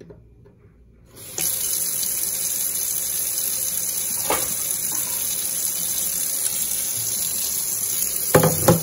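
Kitchen faucet turned on about a second in, its stream running steadily into an empty stainless steel sink. A faint knock comes midway and a louder clunk near the end.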